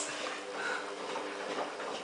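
Samsung WF8804RPA washing machine running in its service test cycle with the air refresh heating engaged: a faint steady hum over a hiss.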